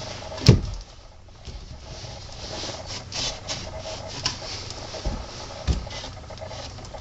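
Cloth rag rubbing and wiping along the wooden joints of a beehive super, cleaning off excess wood glue. A sharp knock comes about half a second in, and softer knocks come about five and six seconds in.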